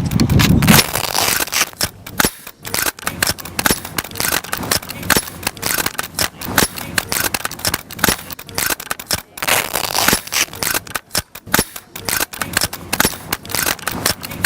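A dense, irregular run of sharp cracks and clicks from rifles on a firing line, several a second and overlapping, with no pause.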